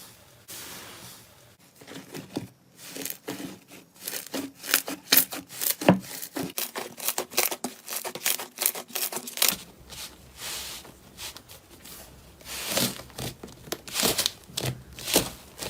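Slime being squeezed and worked by hand: quiet at first, then from about two seconds in a dense run of sharp crackles and pops, thinning out after about ten seconds and picking up again near the end.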